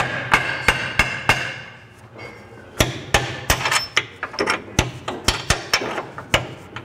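Hammer striking metal in repeated taps, some leaving a short ring: a quick run of about five, a pause of over a second, then a longer, quicker run. The new lower control arm is being tapped into line with its bolt holes.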